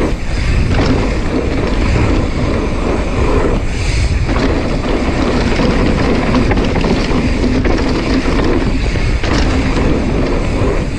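Wind rushing over an action camera's microphone with rumble from a mountain bike's tyres on loose dirt, a loud steady rush with strong low end.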